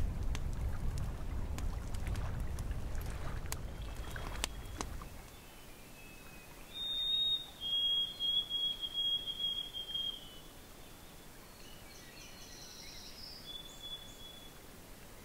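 Wind rumbling on the microphone with a few light clicks for the first few seconds, then a bird sings clear, high whistled notes, one short and one long and held, for about three seconds, with a fainter whistle near the end.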